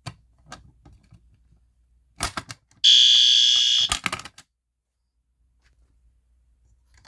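Fire alarm horn sounding one loud, buzzy blast of just over a second, about three seconds in, then cutting off. Scattered clicks and knocks come just before and after it.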